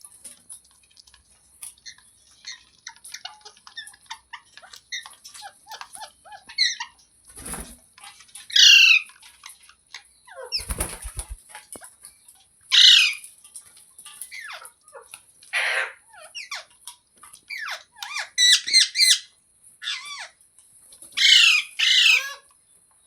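Pet parrots chattering with many soft chirps, broken by several loud, harsh squawks, one of them a quick rattling series. Two short rustling bursts come about a third of the way in and near the middle.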